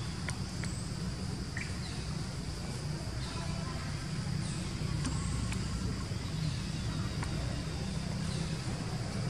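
Outdoor ambience: a steady low rumble with scattered faint, short high chirps.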